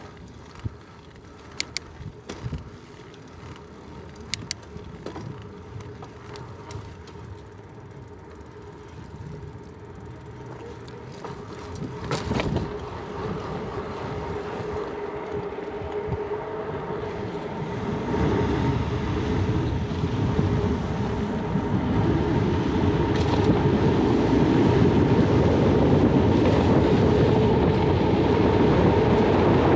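Surly Bridge Club bicycle riding, heard from a GoPro mounted on it: a few sharp clicks in the first few seconds, then tyre and wind noise with a steady hum that grows steadily louder as the bike picks up speed.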